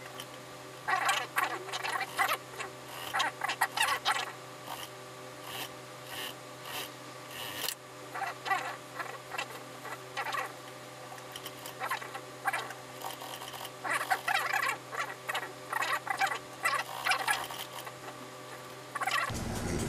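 Suit trouser fabric rustling and scratching in irregular bursts as it is handled and smoothed at a sewing machine, over a steady low hum.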